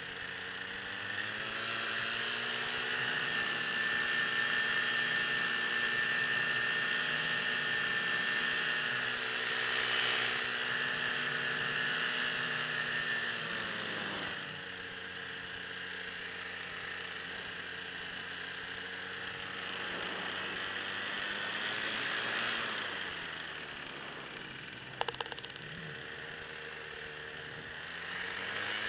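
Paramotor's two-stroke engine running in flight, its pitch falling as the throttle eases back about halfway through, picking up again, dropping a second time and climbing near the end. A single brief click about 25 seconds in.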